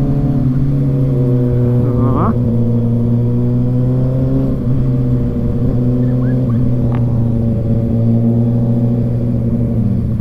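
Kawasaki inline-four motorcycle engines, a Ninja ZX-6R and a Z900 on an SC Project exhaust, running at a steady cruise with an even, held engine note and a brief rise in pitch about two seconds in.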